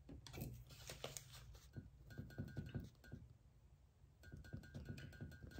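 Faint scratching and light taps of a Derwent drawing pencil on sketchbook paper, busiest in the first few seconds, over a low steady room hum. A faint high tone pulses on and off in the background in the second half.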